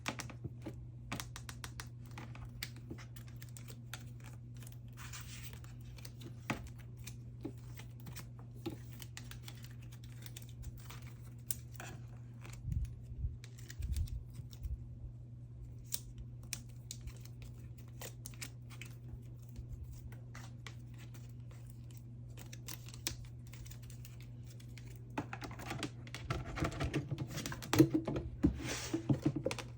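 Photocards being slid out of their plastic sleeves and handled: scattered light plastic clicks and taps, growing into a denser patch of crinkling and clicking near the end, over a steady low hum.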